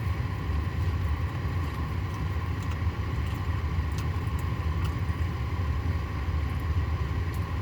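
Steady low rumble of an idling car engine heard from inside the cabin, with a faint steady hum and a few faint clicks.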